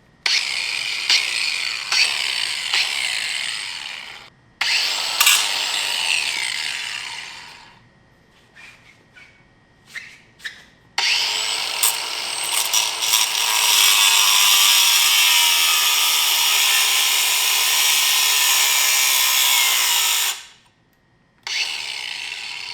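Handheld power tool running against metal in three long bursts, the last and longest about nine seconds, with a few short clicks in the gaps, while working off a seized, stripped turbo-manifold nut.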